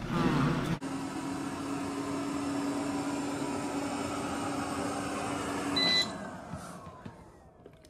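eufy robot vacuum running on carpet: a steady whir with a low hum. A short high beep comes about six seconds in, then the sound fades away with a falling whine.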